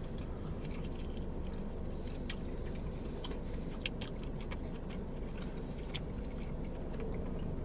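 Quiet chewing with a few faint mouth clicks from someone eating bone-in chicken wings, over a steady low background rumble.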